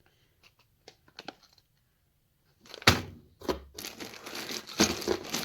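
Plastic parts bags from a wiring harness kit being handled: a few small clicks, then about three seconds in a sharp knock followed by crinkling and rustling of plastic packaging.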